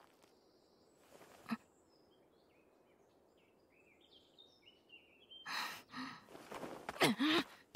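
Quiet forest ambience with a string of faint, short bird chirps in the middle. Near the end come two louder noisy sounds, the second holding a short sound that wavers in pitch.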